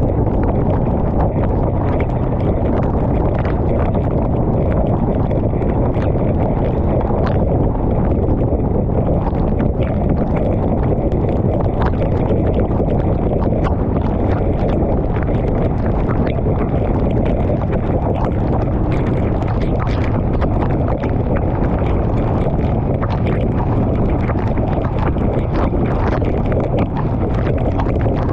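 Steady wind rush and road noise from a Honda Rebel 500 motorcycle riding at speed on a rain-soaked road, with frequent small clicks of raindrops striking the camera.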